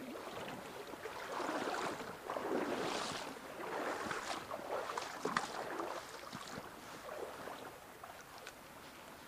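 Legs wading through a shallow river, water sloshing and swishing in surges about once a second, with a few light clicks, then easing back to the steady sound of the flowing stream near the end.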